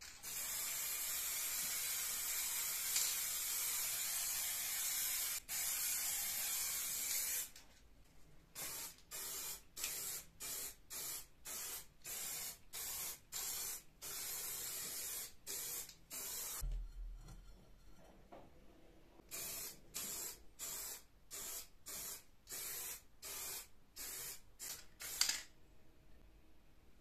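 Aerosol spray paint can spraying: one long spray of about seven seconds, then a run of short spray bursts, about one or two a second, with a pause of a few seconds in the middle.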